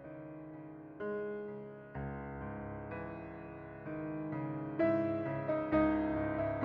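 Background music: slow piano chords, a new chord about every second.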